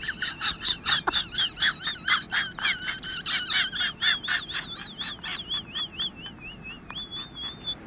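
A fast series of high, bird-like chirps, about four a second, then a high whistle-like tone that wavers up and down and settles on a steady note near the end.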